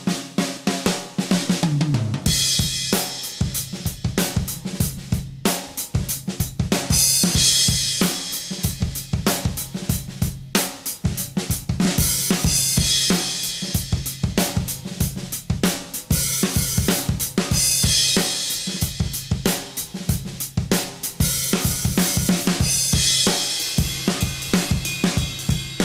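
A drum kit playing a fast, steady beat on bass drum, snare, toms and hi-hat, with cymbal crashes washing in every few seconds.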